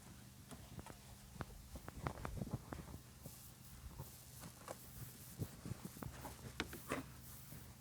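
Faint, irregular taps and light knocks from hands working a car's interior carpet and trim into place, over a low steady hum.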